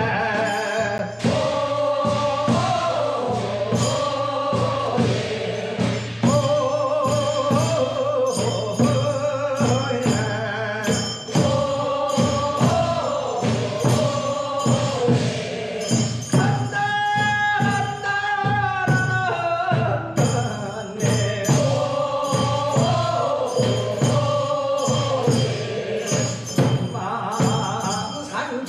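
Korean funeral bier-carriers' song (sangyeo sori): a chorus of male pallbearers singing in repeated phrases, with a single lead voice holding one long solo line about two-thirds of the way through before the chorus comes back in. A regular high jingling beat runs under the singing.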